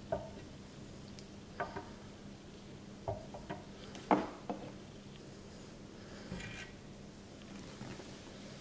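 A handful of short knocks and splashes as a wet dip net is lifted out of a glass bowl of water and drips back into it, the loudest about four seconds in, over a steady low hum.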